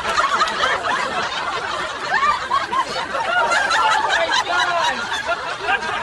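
Several people laughing and chuckling together, with overlapping voices throughout.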